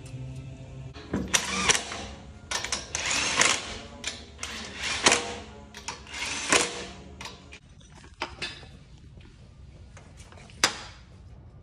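A cordless power tool run in five short bursts, spaced about a second apart, while brake and wheel fasteners are worked, followed near the end by one sharp metallic knock.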